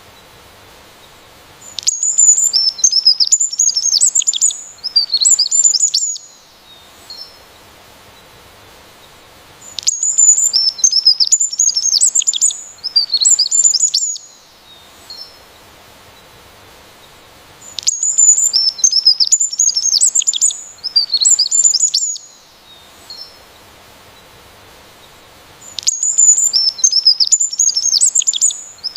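A songbird singing a rapid, high-pitched phrase of chirps and trills. The same burst of about four seconds repeats every eight seconds or so, with a faint steady hiss between.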